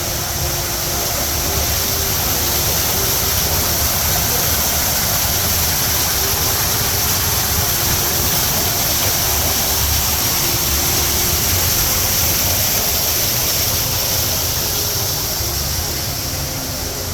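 The Rain Vortex indoor waterfall: a loud, steady rushing of falling water that eases slightly near the end.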